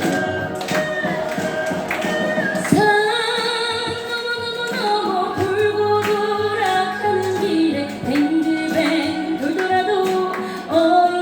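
Live fusion Korean traditional (gugak) music: sustained pitched tones over regular percussion strikes, with a stronger sliding, ornamented melodic line coming in about three seconds in.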